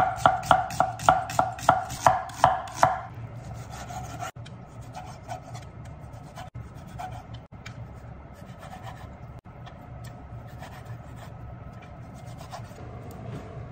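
Large kitchen knife slicing an onion on a wooden cutting board: quick sharp strikes, about three a second, for the first three seconds. Then quieter, softer knife cuts and scraping as raw chicken is cut on the board.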